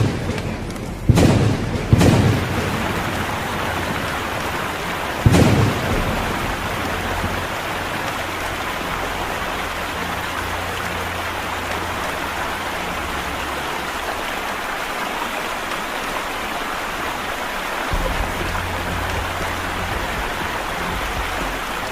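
Steady heavy rain with three sharp cracks of thunder, about one, two and five seconds in.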